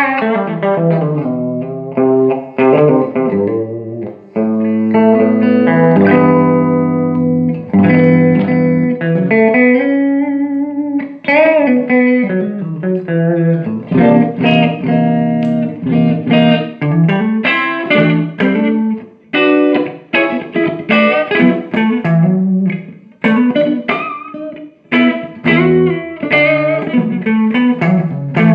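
Electric guitar played through a Fender Blues Junior valve combo amp: a run of picked single notes and chords with a few string bends.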